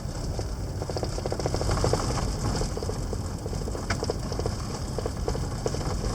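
Road and engine noise inside a moving vehicle, a steady low rumble with bursts of rapid small rattling clicks.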